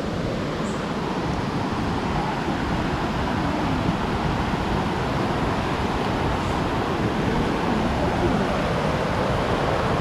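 Rocky forest stream rushing over boulders and small rapids: a steady, even rush of water that grows slightly louder.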